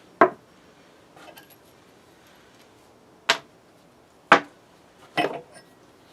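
Heavy metal vise parts being unpacked and set down: four sharp clunks, each ringing briefly, with a faint rustle between the first two.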